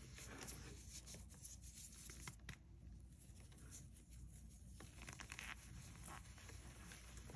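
Soft cornstarch chalk reforms crumbling and rubbing between fingers: faint powdery crunching with scattered fine crackles. A denser run of crisper crackles comes about five seconds in.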